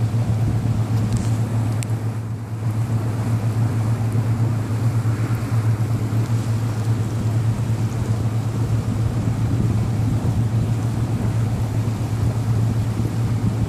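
Motorboat engine running steadily under way, a constant low drone, with wind rushing over the microphone and water noise.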